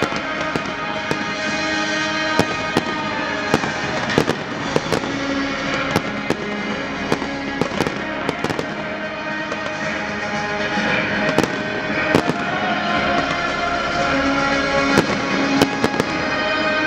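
Fireworks display: aerial shells bursting with frequent, irregular sharp bangs, heard over music with sustained notes.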